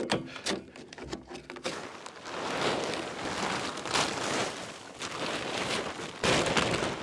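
A plastic poly tarp rustles and crinkles loudly as it is shaken out and pulled over a snowblower. A few light knocks and scrapes come just before it.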